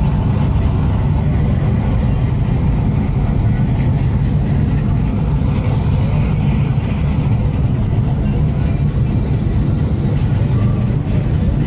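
Pickup truck's engine and road noise heard from inside the cab while it rolls slowly: a steady, loud low rumble.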